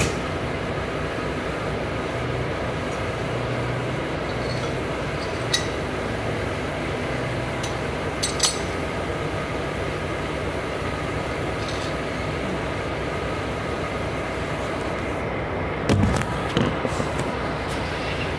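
Steady mechanical drone of idling trucks, with a few sharp metallic clinks (once about five and a half seconds in, a pair around eight seconds, and a short cluster near the end) as a diesel pump nozzle, its hose fitting and a pipe wrench are handled.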